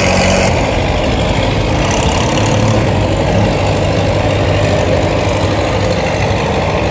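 Sluice gate hoist machinery running with a steady low hum as the gate is opened, over a constant rushing noise.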